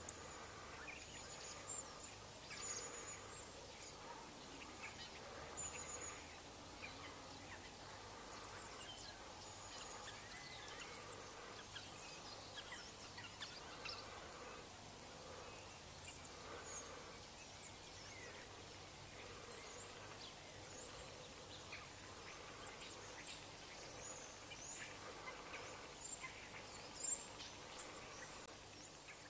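Wild birds calling outdoors: many short high chirps and whistles scattered throughout, over a faint steady background noise.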